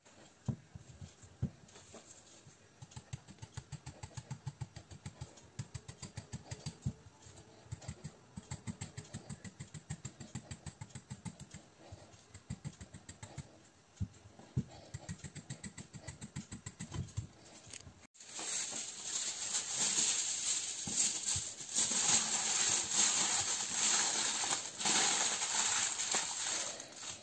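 Quick, light rhythmic tapping, about four taps a second. About two-thirds of the way through, loud crinkling of aluminium foil takes over as a potato is wrapped.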